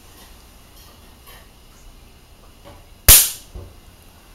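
A motor-run capacitor charged to about 400 volts DC is discharged, giving one sharp, loud bang about three seconds in, followed half a second later by a much fainter snap.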